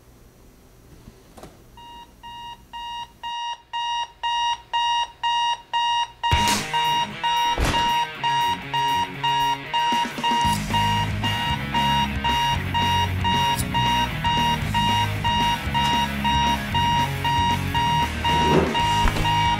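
Electronic alarm clock beeping about twice a second. It fades in and grows louder over the first few seconds, with a couple of sharp knocks a little after that. About ten seconds in, a low pulsing bass comes in under the beeping.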